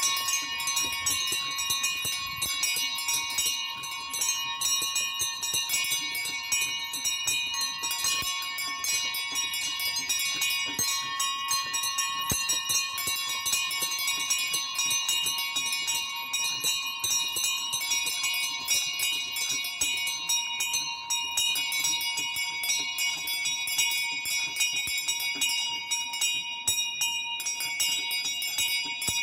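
A small peal of high-pitched bronze bells, tuned to f''', b♭''', c'''' and d♭'''', swung by rope in a wooden bell frame and rung continuously, the strikes overlapping so the ringing never stops.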